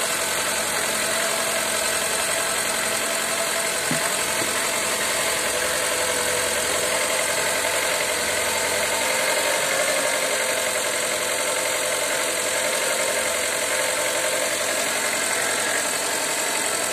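Fiat Linea's 1.4 T-Jet turbo four-cylinder petrol engine idling steadily under an open bonnet. It is running to circulate fresh power steering fluid and work trapped air out of the system.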